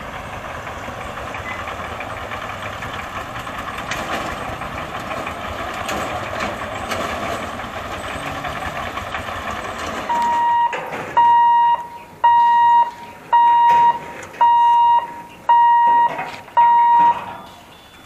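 Road traffic crossing the level crossing: vehicle engines running and passing, with voices. About ten seconds in, a level-crossing warning beeper starts and sounds seven loud, high beeps about one a second, signalling that the barriers are lowering for an approaching train.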